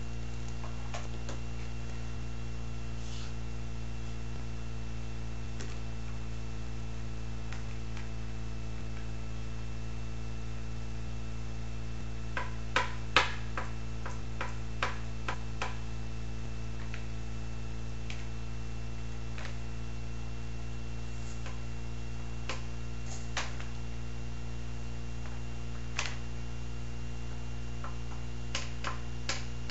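A steady low electrical hum, with scattered clicks and taps as a toddler handles a plastic box on a wooden table. There is a quick run of them a little under halfway through and a few more near the end.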